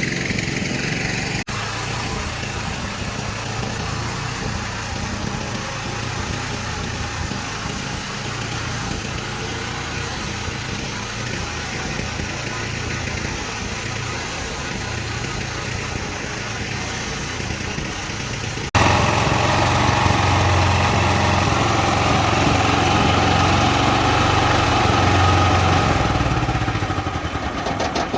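A motor running steadily, with two abrupt jumps in the sound, the second about two-thirds of the way in, after which it is louder.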